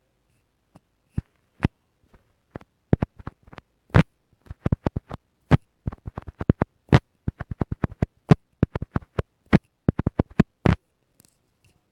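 A quick, irregular run of sharp clicks and taps close to the microphone, sparse at first and then about three to five a second, stopping near the end.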